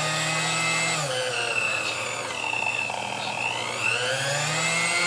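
Sunbeam Mixmaster Model 11 mixer motor running and whining. Its pitch drops about a second in, holds lower, then rises again near the end as the speed dial is turned down and back up. The speed control works again now that the shorted capacitor has been taken out.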